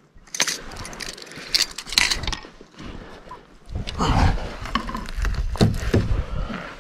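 Clicking and rattling of fishing gear being handled: a lip-grip tool clamped on a fish's jaw and a landing net. A low rumble joins in from about four seconds in.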